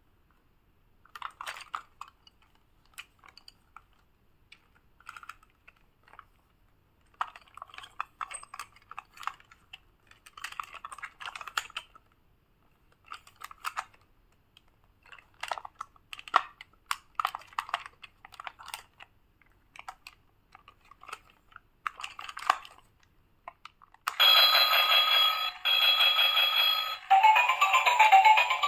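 Plastic toy being handled: scattered clicks and small rattles for most of the stretch. About twenty-four seconds in, the battery-powered musical toy tricycle switches on with a loud electronic tune, which breaks off briefly about three seconds later and then starts again.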